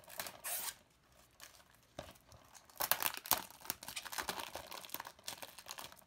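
Plastic shrink-wrap on a movie disc case crinkling and tearing as it is peeled off by hand. It comes in irregular crackly bursts, busiest from about three seconds in.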